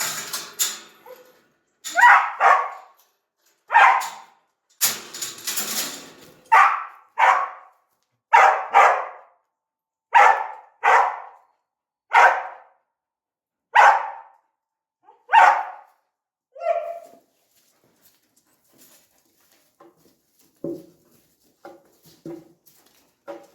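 Blue heeler (Australian cattle dog) barking repeatedly, about fourteen sharp barks, some in quick pairs, roughly one a second. The barking stops about 16 seconds in, leaving only faint scattered small sounds.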